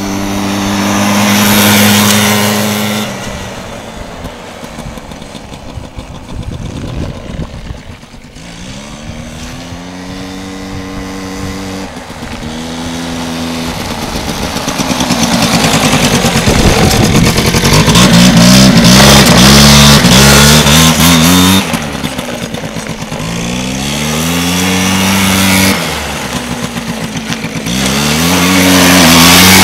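ATV (quad bike) engine revving and accelerating as it rides about. The pitch climbs again and again, then holds or drops back. It is loudest about two seconds in, for a few seconds around two-thirds of the way through, and again at the end.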